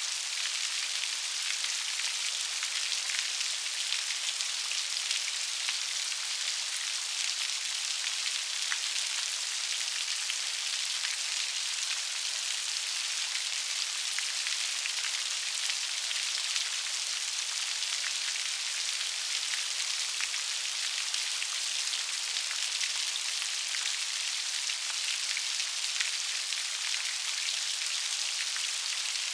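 Steady rain with dense, fine drop patter and a hiss weighted toward the high end, unchanging throughout.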